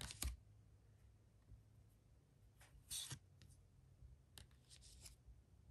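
Faint swishes of Vanguard trading cards sliding against one another as they are flipped through by hand. There are a few short strokes against near silence, the loudest about three seconds in.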